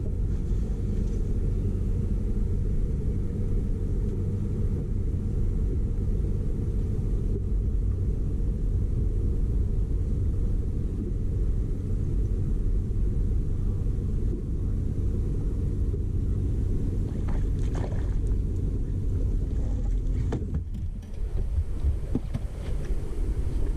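Fishing boat's outboard motor running steadily, a low even rumble with a hum, and a few light knocks near the end.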